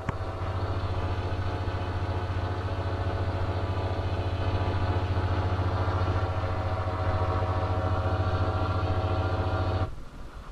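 Emergency Alert System alert tone, distorted into a steady electronic buzz with many overtones. It starts abruptly, holds for about ten seconds and cuts off suddenly near the end.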